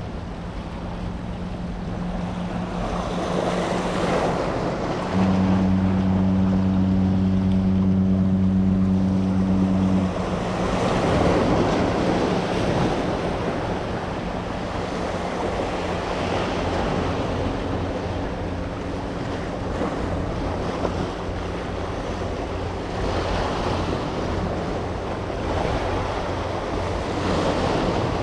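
Surf washing over the jetty's rocks, swelling and falling back several times, with a faint low steady hum under it. A louder low steady tone sounds for about five seconds a little way in, then stops abruptly.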